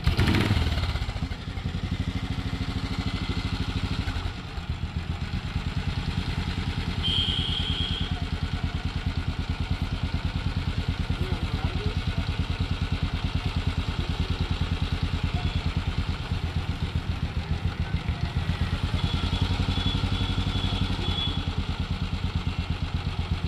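The single-cylinder engine of an old Royal Enfield Bullet fires up suddenly and settles into an idle, a steady, even beat of exhaust pulses. It is the freshly rebuilt and newly oiled engine running after its restoration.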